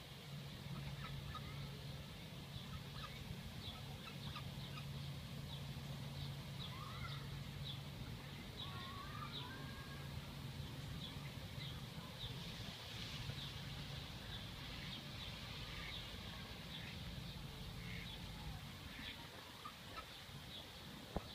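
Birds calling faintly: short high chirps repeat about twice a second, with a few sliding calls midway. A steady low hum runs underneath and fades near the end.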